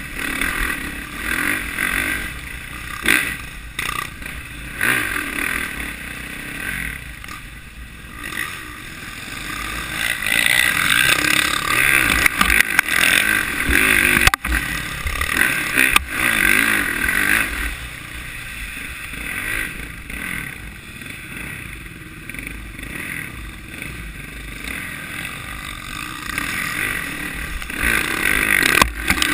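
Dirt bike engine heard up close from the rider's own bike, its revs rising and falling continuously as it rides a rough trail, with occasional knocks and clatter from the terrain.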